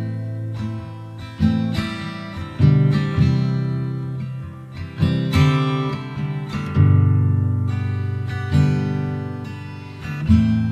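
Acoustic guitar strumming slow chords in a song's intro, each chord ringing out and fading before the next is struck.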